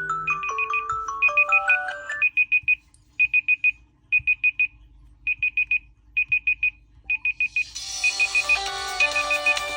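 Smartphone ringtones sounding together. A melodic ringtone plays over a high electronic beep repeating in groups of four, about one group a second. The beeping then goes on alone for several seconds, and about eight seconds in a fuller music ringtone starts with the beeps still running.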